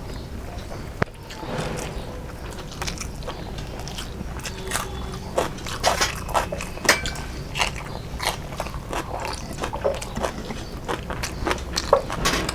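Close-miked eating sounds: a person biting and chewing food, an irregular run of wet smacks and short clicks, with one sharper click about a second in.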